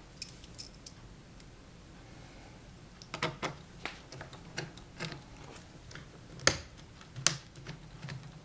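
Scattered light clicks and taps from the plastic parts of a laptop being handled and pressed back into place, with two louder clicks near the end.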